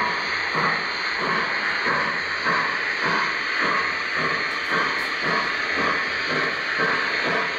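O-gauge model train running on three-rail track: a steady hiss with a regular beat about twice a second.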